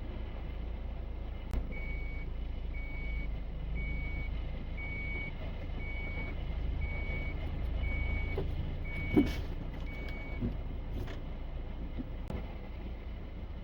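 A vehicle's reversing alarm beeping nine times, about once a second, over a steady low engine rumble. A sharp knock comes about nine seconds in.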